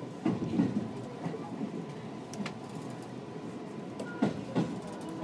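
Train rolling along, heard from inside the carriage: a steady rumble with wheel knocks on the track, a cluster near the start and two more about four seconds in.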